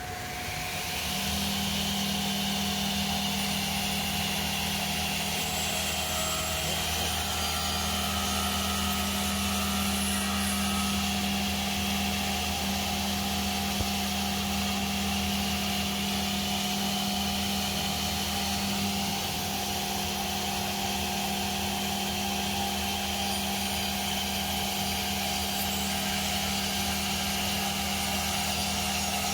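Wood CNC router running: a steady mechanical drone with a constant spindle whine, coming up about a second in and holding level.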